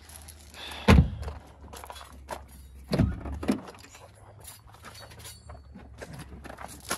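Door of a 1982 Mercedes-Benz 240D (W123) saloon being worked: a heavy thunk about a second in, then another loud thunk around three seconds in with a lighter knock just after, and small clatters in between.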